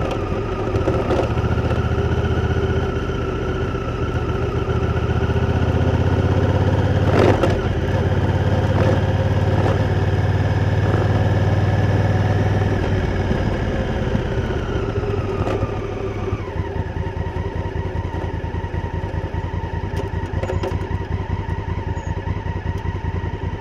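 Honda Africa Twin CRF1000L's parallel-twin engine running under way, steady at first, then dropping in pitch a little after halfway as the bike slows, and running lower and steadier after that. A sharp knock about seven seconds in.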